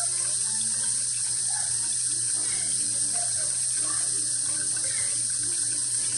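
Steady, loud hiss with a low hum beneath it, unchanging throughout.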